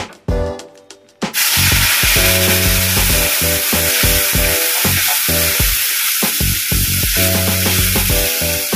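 Ground spice paste hitting hot oil in a wok and sizzling: the sizzle starts suddenly about a second in and runs on steadily as the paste fries. Background music with a steady beat plays along.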